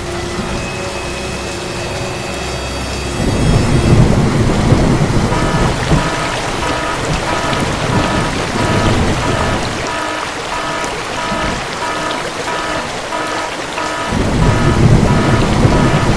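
Steady rain with rumbles of thunder, one swell about three seconds in and another near the end. Through the second half, short high beeps repeat in an even rhythm over the rain.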